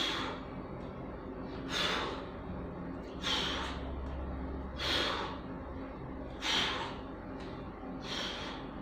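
A man breathing hard during typewriter push-ups, a sharp exhale through the nose about every second and a half, in time with his repetitions.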